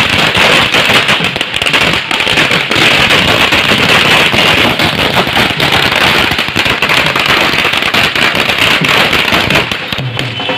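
A string of firecrackers going off on the ground: a dense, unbroken run of rapid small bangs, loud throughout, that eases off near the end.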